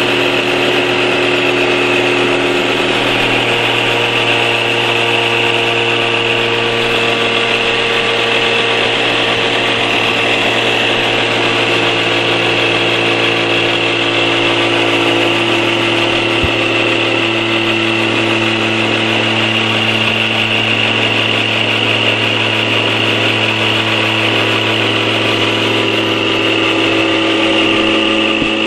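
Small electric motors of a scale model tank's engine bay running: cooling fans, flywheel and fan-clutch drives whirring steadily with a high whine, a few of their tones shifting during the run.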